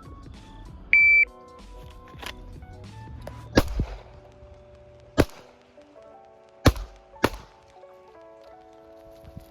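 A shot timer beeps once, then a carbine fires four shots, irregularly spaced over about four seconds, with background music running underneath.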